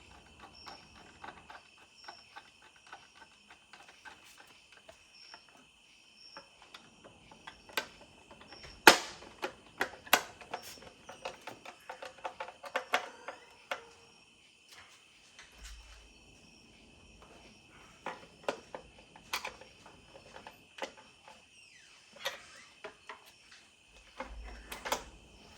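Kayak side panel being handled and fitted back onto the hull: irregular clicks, taps and knocks, the loudest a single sharp knock about nine seconds in.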